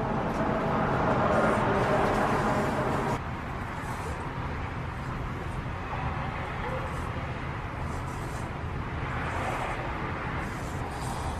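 Outdoor urban background noise with distant traffic, a steady hiss that is louder for the first three seconds and drops abruptly about three seconds in.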